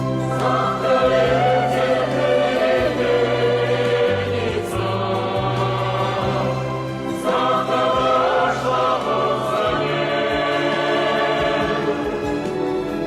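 Music: a choir singing long held notes with vibrato over a slow-moving instrumental bass line, pausing briefly twice.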